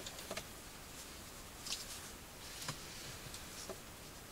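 A few faint, scattered clicks and light handling noises as small fishing tackle and line are worked by hand.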